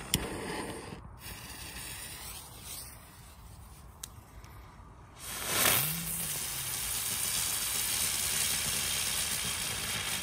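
Small P1 youth ground fireworks burning on asphalt with a coloured flame, hissing and fizzing, with a sharp click at the start. A short, louder rushing swell comes about six seconds in.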